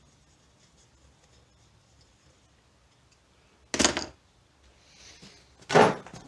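Two short scraping or clattering handling noises, about four and six seconds in, against a quiet background.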